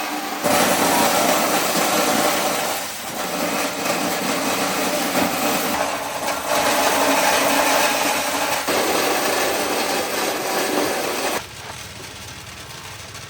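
Motorised corn sheller running loudly, a dense mechanical noise of the machine stripping kernels from the cobs, changing abruptly several times.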